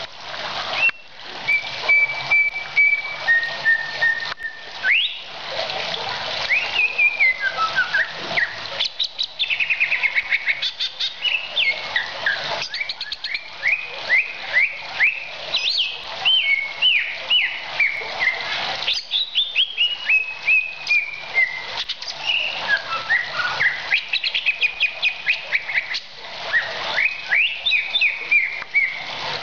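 Green leafbird (cucak ijo) singing a long, varied song: a few held whistles near the start, then fast runs of short downward-sweeping notes and slurred whistles, over a steady background hiss.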